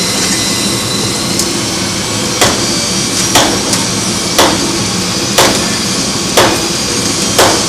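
Hammer blows on a ship's wooden hull planking: six sharp strikes about a second apart, starting about two seconds in. A steady hiss runs underneath.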